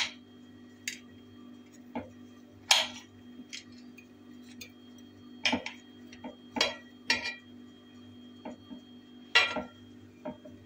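Knife blade clinking and scraping against a glass cake plate while slicing a bundt cake, in scattered sharp strokes, the loudest about a third of the way in and near the end. A steady low hum runs underneath.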